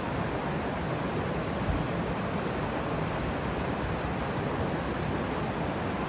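Waterfall: a steady, unbroken rush of falling water, fullest in the low and middle range.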